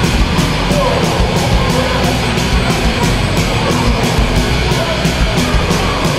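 Loud rock music with a steady, fast drum beat.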